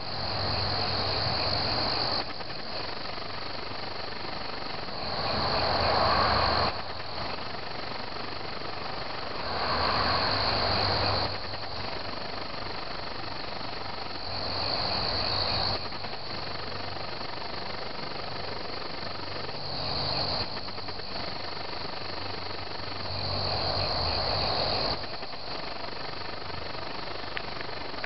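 Crickets chirping in a steady high trill. Every four to five seconds a lower, rough sound swells for a second or two and fades again.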